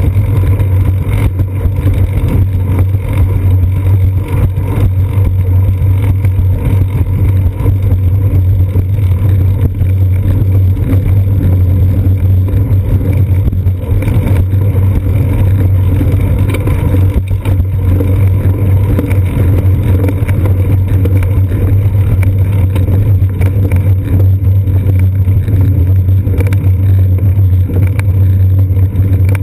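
Steady low hum and rumble with frequent small knocks, picked up through a seat-post mounted GoPro Hero 2 housing as the bicycle rolls over pavement.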